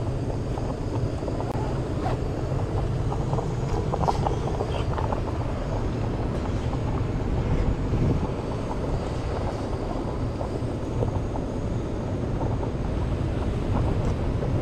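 Jet aircraft passing overhead: a steady, continuous low rumble, mixed with wind on the microphone.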